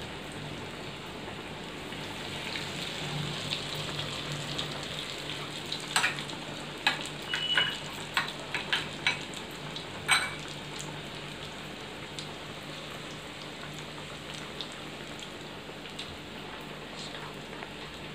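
Breaded chicken nuggets deep-frying in a wok of hot oil, a steady sizzle. A run of sharp clicks and taps comes from about six to ten seconds in.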